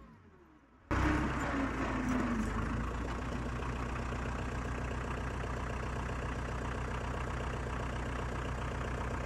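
A vehicle engine idling steadily, cutting in abruptly about a second in.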